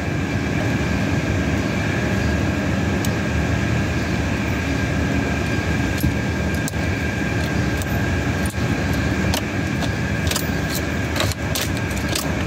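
Keys jangling on their ring and scattered light clicks as a replacement ignition lock cylinder is worked into a 2015 Chevrolet Silverado's steering column. A steady mechanical hum runs underneath.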